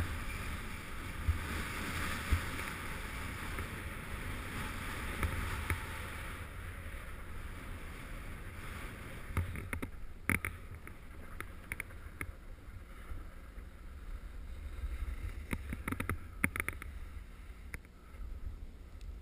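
Wind buffeting the microphone while skiing fast downhill, with skis hissing and scraping over packed snow. In the second half the hiss drops and a few sharp knocks come through, as from the skis hitting bumps.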